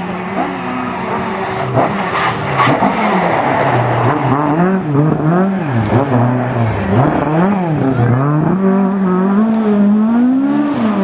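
Rally car engine on a gravel stage, holding a steady note at first, then revving up and down over and over as the driver works the throttle.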